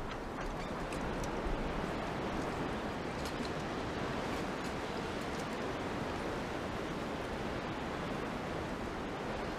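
Steady outdoor ambience: an even rushing noise like distant surf or traffic, with a few faint clicks.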